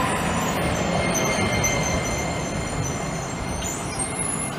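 DART light rail train rolling past along the platform: a steady rumble and hiss of wheels on rail, slowly getting quieter, with faint high whines above it.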